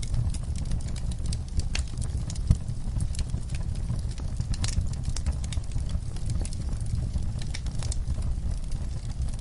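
Wood fire burning in a fireplace, crackling and popping irregularly over a steady low rumble of the flames, with one sharper pop about two and a half seconds in.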